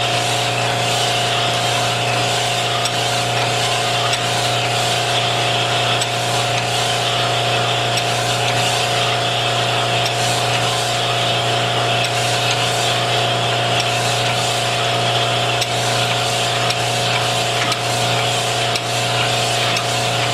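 Manual cylinder honing machine running with rough stones grinding inside a cast-iron cylinder bore of a Willys L134 block under a flood of honing oil. It makes a steady grinding hiss over a constant motor hum.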